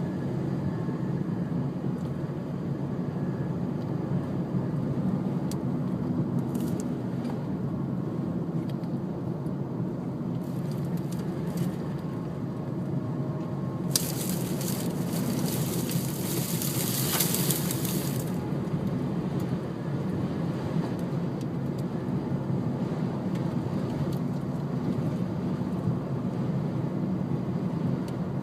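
Steady low rumble of a vehicle running, with a loud rush of hiss for about four seconds a little past the middle.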